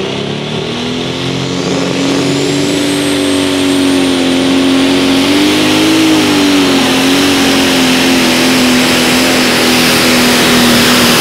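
Pro Stock pulling tractor's turbocharged diesel engine running flat out as it pulls the sled. A high turbo whine rises in pitch about two seconds in and then holds. The engine note wavers up and back down briefly in the middle, and the whole sound grows louder toward the end.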